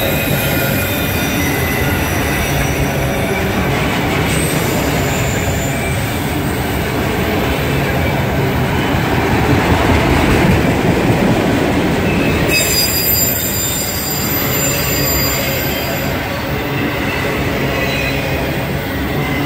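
Freight train of autorack cars rolling past at close range: a steady rumble of wheels on rail, loudest about ten seconds in, with thin high wheel-squeal tones that shift and come back over the passage.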